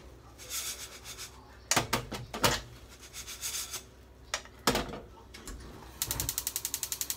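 A wooden spatula scraping and knocking against an aluminium saucepan of pancake batter. About six seconds in comes a fast, even run of clicks, roughly a dozen a second.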